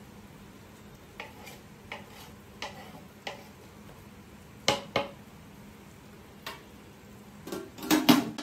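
A spoon tosses vegetables in a large aluminium pot, knocking and scraping against the pot's side: four knocks at a steady pace, then two louder knocks. Near the end, the aluminium lid clatters loudly onto the pot.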